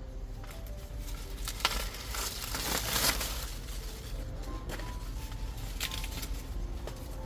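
Dry plant material rustling and crackling, busiest midway through, with a couple of sharp snaps, over soft background music.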